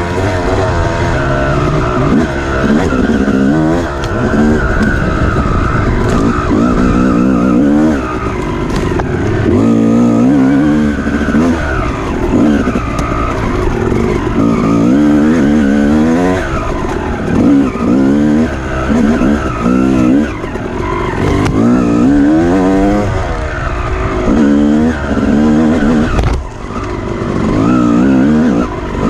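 Off-road dirt bike engine revving hard and easing off over and over, its pitch rising and falling every second or two as the rider works the throttle and gears.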